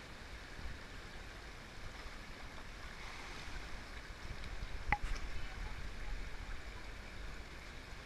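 River water running and splashing in a gorge pool as a swimmer crosses it. About five seconds in there is a single sharp click, and the water sound grows louder for a second or two after it.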